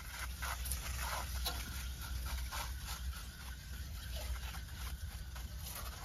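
Aerosol can of foaming coil cleaner spraying onto an air conditioner condenser's coil fins: an irregular hiss coming and going in short bursts, over a low steady rumble.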